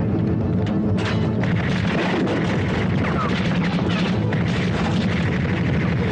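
Loud, dense action-scene soundtrack: music under booms, with a few sharp crash-like hits.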